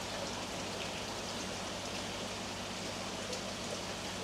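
Steady splashing patter of water falling onto a pond's surface, with a low steady hum underneath.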